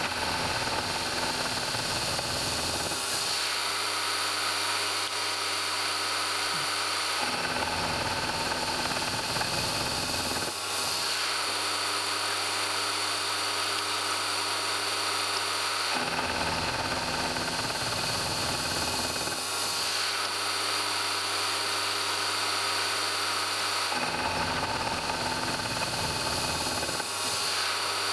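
Milling machine spindle running with a steady whine while a gear cutter cuts the teeth of a 100-tooth gear blank indexed on a dividing head. Four times, about every eight seconds, a rougher cutting noise joins for about three seconds as the cutter passes through the blank, with only the spindle running in between.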